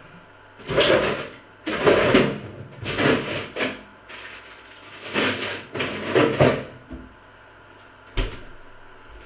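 Kitchen handling noises: several short bouts of rustling and scraping while someone works at the stove, then a single sharp knock about eight seconds in.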